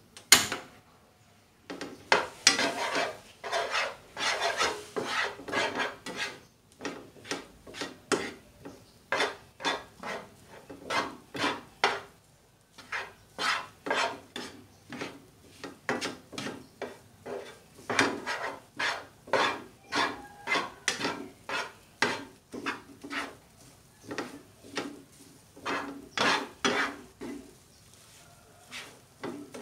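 Spatula stirring and tossing rice in a nonstick frying pan, scraping and knocking against the pan in a quick run of strokes, roughly two a second with short pauses. A sharp knock on the pan just after the start is the loudest.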